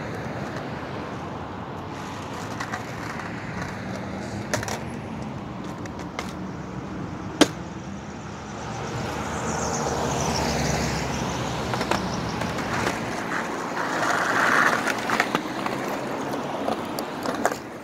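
Steady road traffic, with a vehicle passing close and loud in the middle, and the sharp clacks of a skateboard's tail and wheels hitting the concrete now and then, the loudest about seven seconds in. Near the end, knocks and rustling as the camera is handled.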